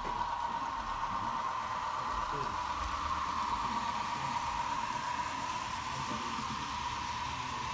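A steady mechanical whirring hiss, strongest in the middle of the pitch range, that dips slightly in pitch around the middle and rises again near the end.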